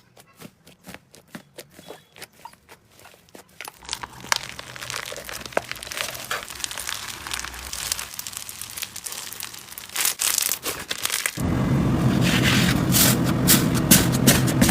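Slime being handled and pressed, giving sharp crackles and pops. They come one at a time at first and grow denser and louder. About eleven seconds in the sound changes abruptly, and a steady low hum joins the crackling.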